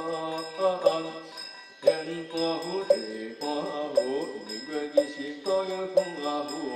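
Taoist scripture chanting: voices sing a long, drawn-out melismatic line over a steady beat of a sharp percussion strike about once a second, with thin bell-like ringing tones held underneath.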